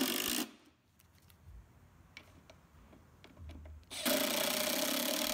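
Cordless Milwaukee M12 Fuel brushless impact driver driving screws into a radiator's plastic thermostat plate. It hammers in a rapid rattle that stops about half a second in, then after a pause with a few light clicks it runs again from about four seconds in.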